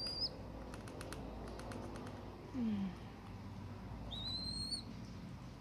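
Young house sparrow pecking food pellets in a small metal bowl, a run of quick light taps. Two thin high whistles sound, one at the start and one about four seconds in, with a brief low falling sound in between.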